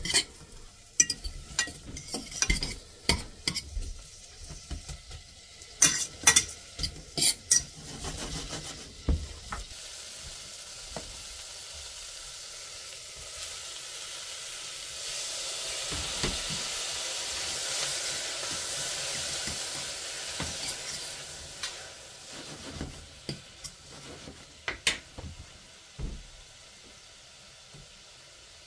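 Food sizzling in a pan while a utensil stirs and clinks against it. Sharp clinks come first; the sizzle then runs steadily, swells in the middle and fades, and a few more clinks follow near the end.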